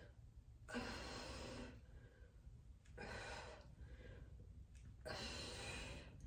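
A woman breathing hard under exertion during dumbbell front raises: three heavy breaths, about two seconds apart.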